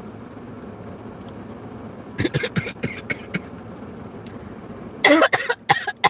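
A woman coughs in a few short bursts, the loudest about five seconds in, over a steady hum inside a car. About two seconds in comes a quick run of short clicks and knocks.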